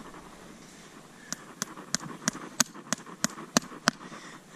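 Farrier's hammer driving a horseshoe nail through a steel shoe into a mule's hoof: nine sharp blows, about three a second, starting a little over a second in.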